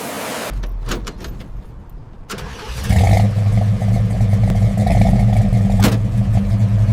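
A 1970 Chevrolet Camaro Z28's V8 engine is started: a couple of seconds of cranking clicks, then it catches about three seconds in and settles into a loud, steady idle. There is a single sharp click near the end.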